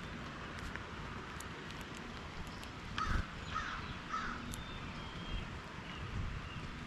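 Three harsh crow caws, about half a second apart, a little under halfway through, over a steady outdoor background hiss. A low thump comes as the caws begin.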